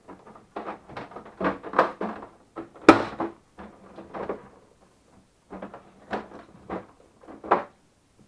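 Plastic housing panels and top cover of a Melitta Barista TS Smart coffee machine being handled: a run of irregular plastic knocks, clicks and scrapes, the loudest about three seconds in, a short lull near the middle, then more knocks.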